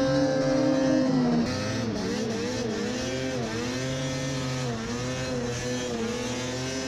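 Ski-Doo snowmobile's two-stroke engine running on the stand at a fast idle. The revs drop a little after about a second and a half, then gently rise and fall.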